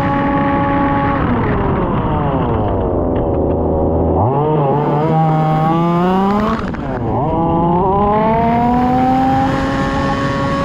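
Petrol engine of a 1/5-scale RC Formula 1 car revving as it is driven: the pitch drops as it slows about a second in, then climbs twice under acceleration with a brief dip between, and falls again near the end.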